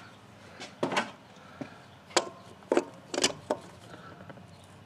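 Pliers clicking and tapping against the metal throttle body as they are set on the fuel injector's retainer screws: several short, sharp metallic clicks.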